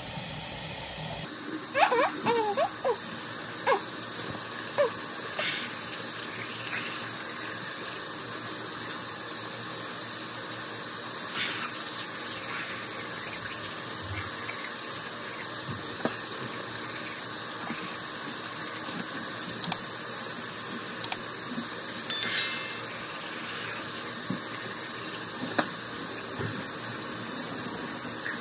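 Bathroom sink tap running steadily, with a few short clicks and knocks over it.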